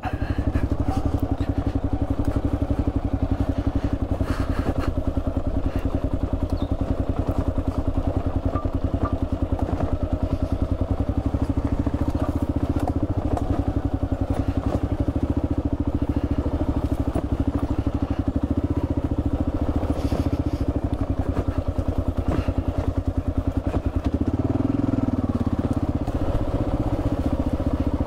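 Kawasaki KLR650's single-cylinder four-stroke engine running steadily as the motorcycle is ridden at low speed, with a brief swell in the engine note near the end.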